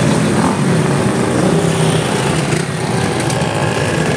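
Many motorcycle engines running together as a column of bikes rolls slowly past, a steady mixed engine drone.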